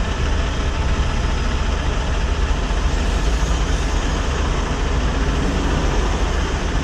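Steady traffic noise heard from inside a stopped car's cabin: cross traffic driving through the intersection, with a constant low rumble.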